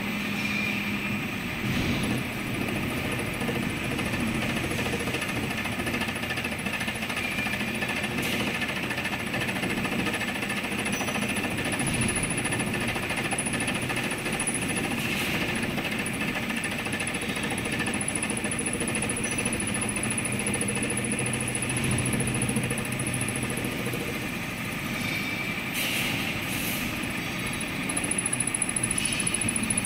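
Vertical milling machine running with a fly cutter taking an interrupted cut across a steel hydraulic shaft to mill wrench flats: a steady rapid chatter of the single cutting tip striking the metal, with a thin high whine over it.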